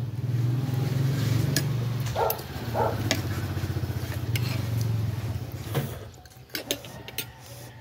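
A steady low engine hum, like a motor vehicle running nearby, which drops away about six seconds in. Light clicks of a fork and spoon against a plate of noodles.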